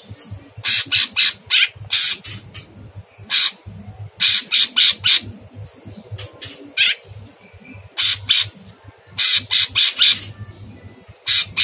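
Caged cucak cungkok leafbird calling in harsh, rasping notes: short loud strokes, mostly in quick runs of two to four, repeated every second or two.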